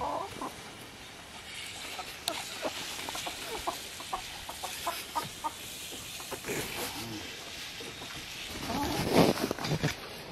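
Backyard hens clucking in short, separate notes, with a louder, rougher burst of sound near the end.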